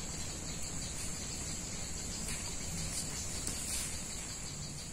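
Steady high-pitched insect chorus, a constant shrill trill, over a faint low background rumble.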